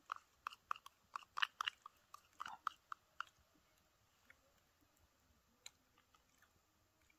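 Eating close to the microphone: a quick run of small clicks and crunches for about three seconds, then only a few scattered ticks.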